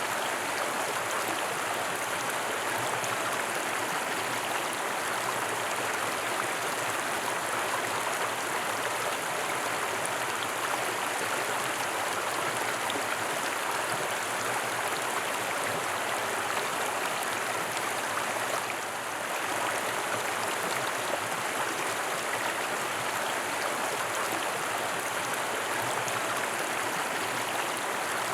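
Stream water flowing, a steady continuous rush that dips briefly in loudness about nineteen seconds in.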